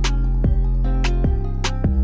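Background music: an electronic track with deep sustained bass notes and sharp drum hits on a steady beat.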